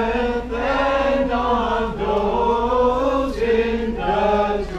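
Orthodox liturgical chant: several voices singing a slow hymn, with long held notes that glide from one pitch to the next and short breaks between phrases.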